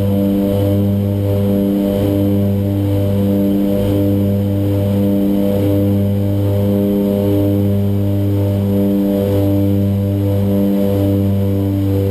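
OV-10 Bronco's twin Garrett T76 turboprops running steadily, heard from inside the cockpit: a loud, even drone that pulses in a slow, regular beat, the sign of the two propellers turning at slightly different speeds.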